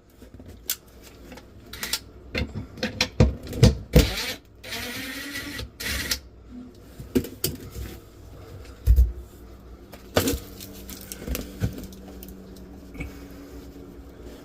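Irregular knocks, clicks and clatter from handling tools and materials, with a short whirring run of about a second and a half in the middle, then a few scattered knocks.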